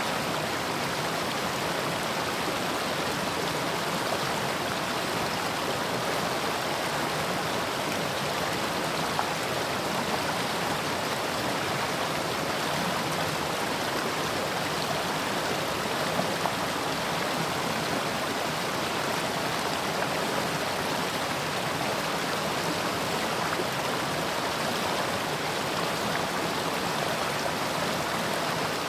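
Mountain stream flowing over rocks: a steady, even rush of running water.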